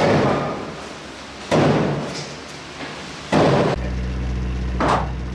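Four single gunshots fired slowly, about one every one and a half seconds, each with a short echo. A steady low hum starts about two-thirds of the way through.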